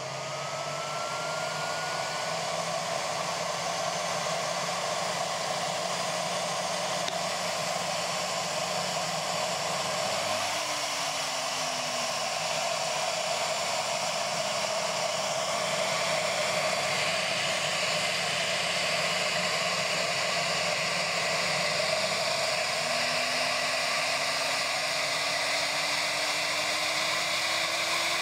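Siemens Green Power Edition vacuum cleaner running with its intake sealed off by a vacuum gauge, a steady rushing whine of the motor straining with no airflow. The sound swells over the first few seconds, and faint tones in it shift about ten seconds in and rise near the end.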